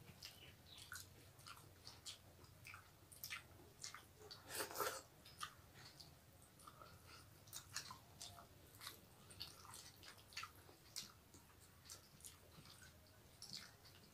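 Faint chewing and small mouth clicks of people eating rice and curry with their fingers. The clicks come irregularly, with a slightly louder stretch about five seconds in.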